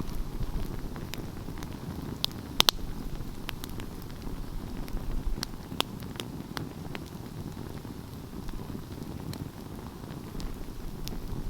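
Wood fire burning with a steady low rumble and scattered sharp crackles and pops, the loudest two coming close together about two and a half seconds in.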